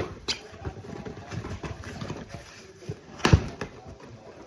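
A box being opened and its contents handled: scattered rustles and light knocks, with one louder knock about three seconds in.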